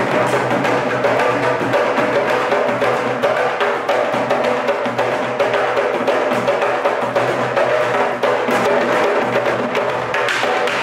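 An ensemble of barrel-shaped wooden hand drums, candombe-style tamboriles, played together with bare hands and sticks in a steady, dense rhythm, the sticks also clicking sharply.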